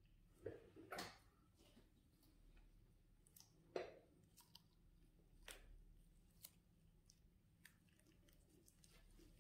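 Faint, scattered wet clicks and squishes from hands working the face during a buccal massage, fingers pressing and kneading the cheeks from outside and inside the mouth. The sharpest click comes about four seconds in.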